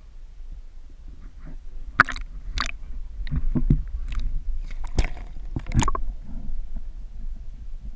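Water sloshing and splashing as a large pike is lowered into the lake beside the kayak and released, with several sharp knocks and splashes, the loudest about two seconds in and around five to six seconds in. Part of it is heard muffled as the camera dips under the surface.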